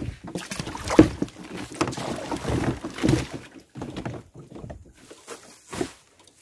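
Paddling a small boat on a river: several uneven paddle strokes splashing and knocking in the water.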